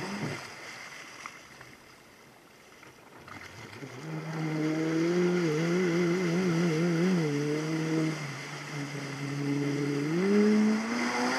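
Motorboat engine starting to drone about four seconds in, after a few seconds of quieter water wash. Its pitch wavers up and down for a couple of seconds, holds steady, then rises near the end as the boat speeds up.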